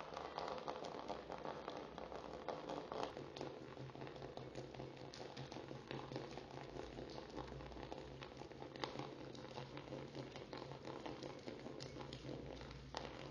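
A thin stream of water pouring and splashing onto a soaked folded napkin and the table top: a dense crackling patter of drops. A low steady hum comes in underneath about three seconds in.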